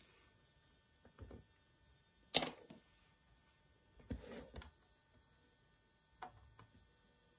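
Handling noise from a Canon camcorder: a handful of separate plastic clicks and clacks, with one sharp click about two and a half seconds in the loudest, a short rattly clatter a little after four seconds, and a last click near the end.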